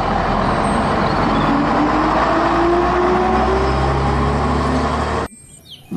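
Vintage green single-deck London bus (an RF-class AEC Regal IV) pulling away, its underfloor diesel engine running under load with a whine that rises slowly in pitch as it accelerates. The sound cuts off suddenly about five seconds in.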